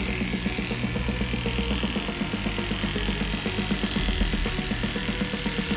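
Cordless electric dog clipper running steadily as it shaves through a heavily matted, dreadlocked coat, over background music.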